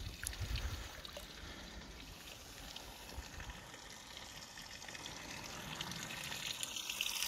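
Shallow river water flowing and trickling, a steady watery hiss that grows louder near the end, with brief low rumbles in the first second.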